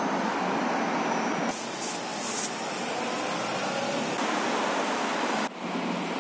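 Road traffic noise from a busy street below: a steady rushing hiss that changes abruptly in level and tone about one and a half, four and five and a half seconds in.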